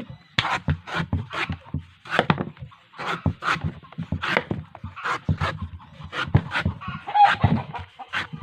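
Blade chopping into a coconut's husk and shell, a steady run of sharp strokes about two a second.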